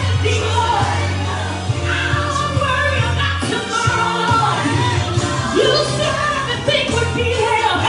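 A woman singing gospel-style pop live into a handheld microphone over amplified recorded music with a steady bass line, heard through a PA speaker.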